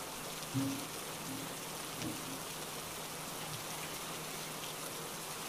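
Steady rain falling, an even hiss of drops with no let-up. A few faint, brief pitched sounds break in during the first two seconds.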